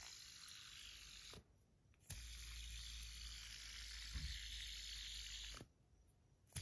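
Titanium LIC EDC Edamame fidget spinner spinning on its bearing with a faint, steady whirring hiss. It is stopped short about a second and a half in and flicked back into spin with a click half a second later. It is stopped again near the end.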